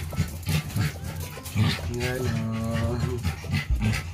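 23-day-old Shih Tzu puppies whimpering in short, high cries, with one longer cry about two seconds in.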